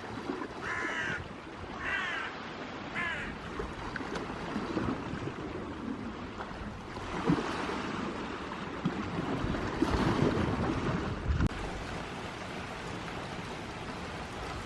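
Sea waves washing onto the shore in a continuous wash, swelling louder about seven and ten seconds in. A bird calls three times in quick succession near the start.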